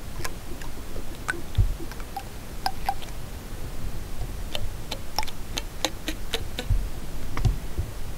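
Sharp, dry clicks, irregular and scattered, several in quick succession in the middle, as fingertips touch and flick the spines of a saguaro cactus. A low rumble of wind on the microphone runs underneath.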